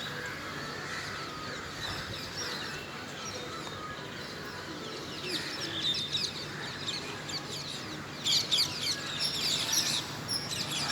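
Birds chirping: many short, high chirps throughout, rising to a louder, dense flurry of rapid chirps about eight seconds in and again near the end.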